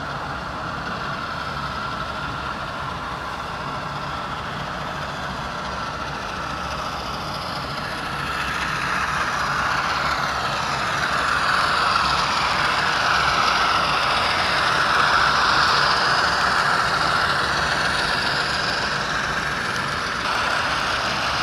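Diesel locomotive engine running steadily, growing louder from about eight seconds in as the locomotive approaches.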